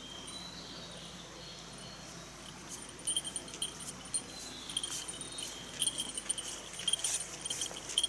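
A small bell on a walking angler's gear jingling irregularly with his steps, starting about three seconds in, over light footsteps on a gravel road.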